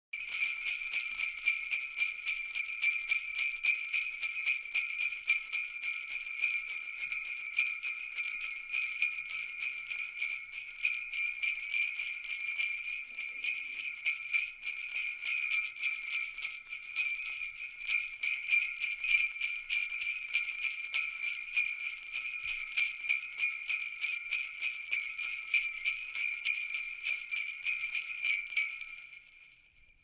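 Jingle bells shaken in a quick, even rhythm, many small bells ringing together; the jingling fades out near the end.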